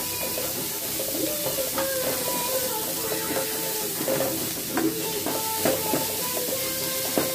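Chopped onions and green chillies sizzling in oil in a metal kadai, stirred and scraped around with a metal spatula, with frequent short clicks of the spatula against the pan.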